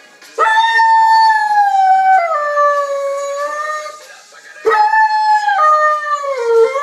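Long-coated German Shepherd howling: two long howls, each dropping in pitch in steps, the second starting a little past halfway.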